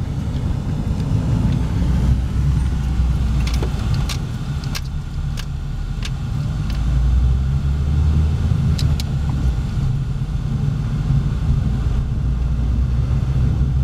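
Car interior while driving: a steady low rumble of engine and road noise, with a few short sharp clicks in the middle stretch.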